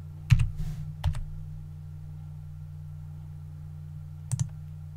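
Computer keyboard and mouse clicks: a click, another about a second in, and a quick double click near the end, over a steady low electrical hum.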